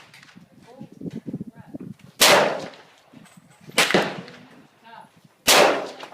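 AR-15 rifle firing three single shots, each a sharp crack with a short echo, spaced about one and a half seconds apart.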